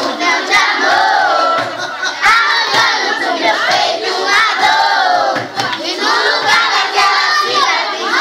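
A crowd of children shouting and chattering loudly all at once, many voices overlapping.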